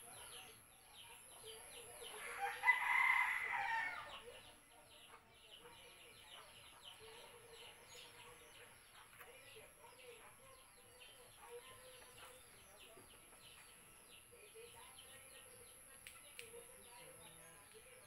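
A rooster crows once, about two seconds in. Fast, high chirping of small birds continues throughout.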